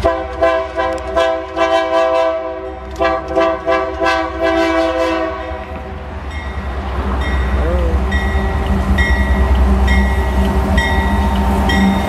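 GE AC44i diesel locomotive sounding its multi-tone air horn in a quick run of short blasts, then a longer blast, as it approaches. After the horn stops its diesel engine runs, growing louder as it draws near, with a faint regular ticking a little faster than once a second.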